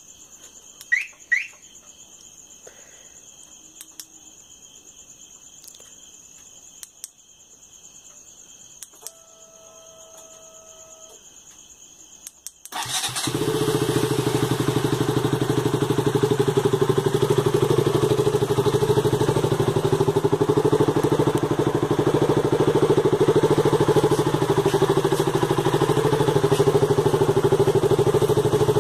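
KTM Duke 200's single-cylinder engine starting a little before halfway, then idling steadily with an even pulse. Before it starts, crickets chirp steadily.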